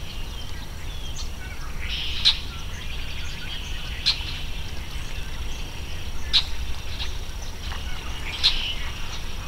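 Small birds calling in a marsh: a sharp chirp about every two seconds over continuous twittering, with a steady low rumble underneath.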